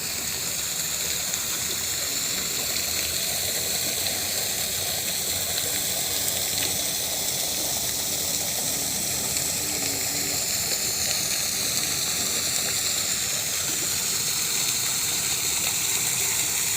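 Water fountain jets splashing: a steady, even rush of falling water.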